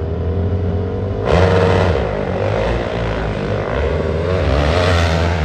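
Four-stroke hillclimb engine running hard at high revs. About a second in it turns suddenly louder and brighter, and its pitch wavers as the throttle is worked.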